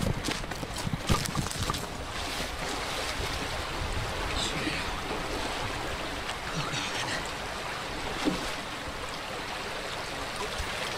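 Fast-flowing creek rushing steadily, with a few knocks and bumps in the first couple of seconds.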